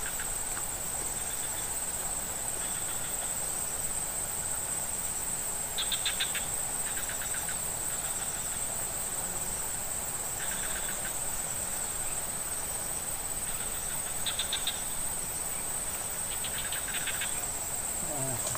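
Insects in swampy grassland: a continuous high-pitched buzzing drone, joined every few seconds by short, rapidly pulsing trills from other callers.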